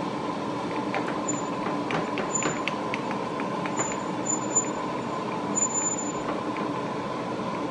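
Woodshop machinery running with a steady drone: the dust collection system together with a DeWalt DW735 thickness planer. A few faint light ticks sound over it in the first half.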